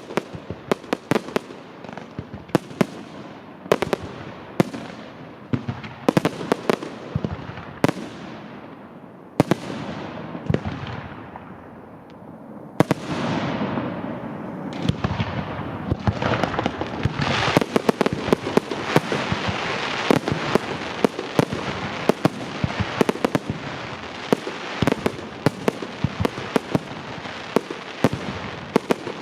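Aerial fireworks display: a rapid string of sharp shell bursts and bangs. About halfway through it thickens into a dense, continuous crackling barrage.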